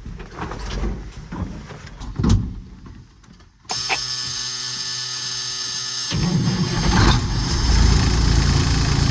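A few scattered knocks and clicks, then the AutoCar truck's diesel engine is started: the starter cranks with a steady whine for about two and a half seconds, and the engine catches and runs on.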